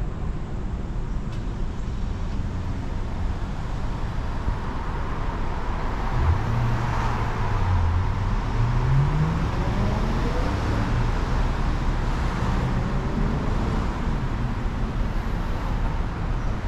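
Street traffic rumbling steadily, with one vehicle accelerating about six seconds in, its engine note rising over a few seconds.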